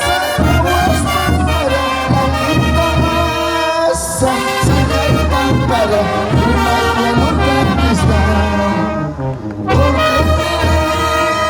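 Bolivian carnival brass band playing, with trumpets and trombones over a steady bass drum beat. The music briefly thins about nine seconds in.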